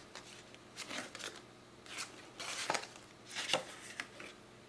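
Small cardstock cards being handled and shuffled by hand, sliding and tapping against one another in a few short, soft rustles.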